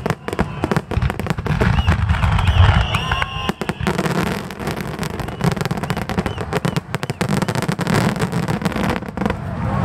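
Finale barrage of aerial firework shells bursting in rapid succession: a dense, unbroken run of booms and crackles, many bursts a second, with a deep rumble beneath.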